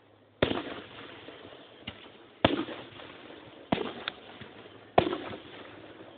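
Aerial fireworks shells bursting: four loud bangs a little over a second apart, each trailing off in a crackling rumble, with a couple of smaller pops between. Heard through a phone's microphone, so the sound is dull and lacks its top end.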